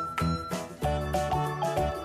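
Background music: a melody of short held notes over a bass line with a steady beat.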